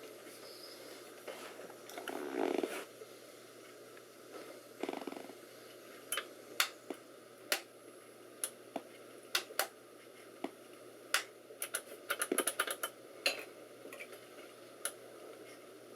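Scattered sharp plastic clicks and taps from handling computer hardware, with a quick flurry of clicks near the end and a brief rustle a couple of seconds in, over a faint steady hum.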